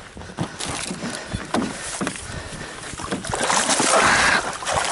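A big black bass thrashing at the surface as it is scooped into a landing net beside the boat, water splashing. There are a few sharp knocks early on, and the splashing is loudest about three and a half seconds in.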